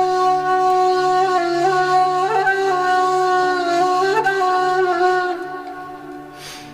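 Nay, the end-blown cane flute, playing a slow taqsim in maqam Hijaz. It holds one long note with two brief ornamental turns over a low steady drone. The note fades out near the end, followed by a short breathy rush.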